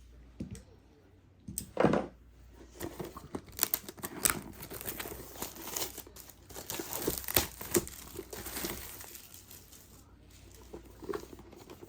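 Plastic wrapping being torn off a trading-card box and crumpled, with a run of irregular crinkling and crackling and a knock about two seconds in.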